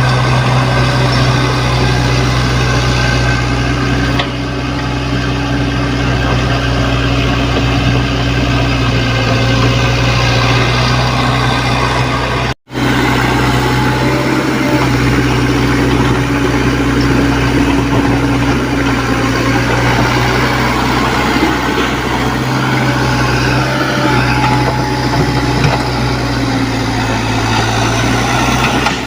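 Mini excavator's diesel engine running steadily, its pitch wavering slightly. It drops in level briefly about four seconds in and cuts out for an instant just past the middle.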